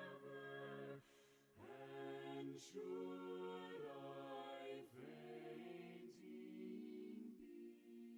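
A slow hymn sung quietly by an a cappella choir in harmony, with held chords and short breaks between phrases.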